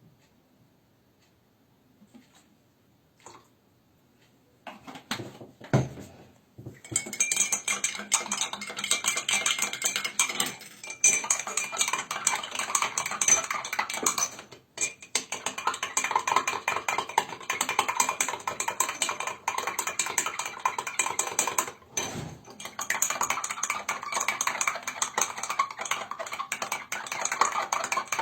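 Rapid, continuous clinking and rattling of small hard objects, starting about five seconds in and running on with a few brief pauses.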